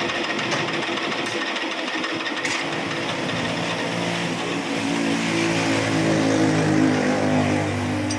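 A machine's motor running steadily, its hum growing louder and more tonal from about halfway in.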